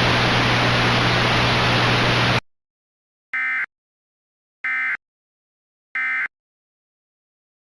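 Loud radio static hiss with a low steady hum, cutting off suddenly about two and a half seconds in. It is followed by three short bursts of data tones about 1.3 s apart: the SAME end-of-message code that closes an Emergency Alert System broadcast.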